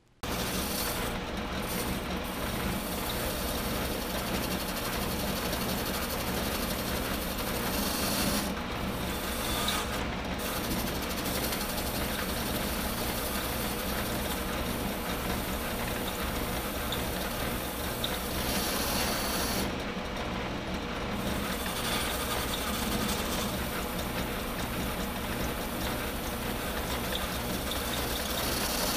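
Small belt-driven metal lathe running while a cutting tool turns a groove into the side of a roller die for a tube roller: steady machining noise with a regular low pulse.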